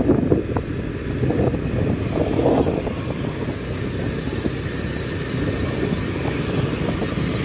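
Motorcycle riding along at a steady speed: engine and wind noise on the rider's microphone, steady throughout.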